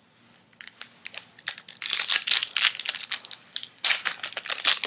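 Foil wrapper of a Bowman Chrome baseball card pack being crinkled and torn open by hand, in quick irregular bursts that start about half a second in and are loudest around two seconds in and near the end.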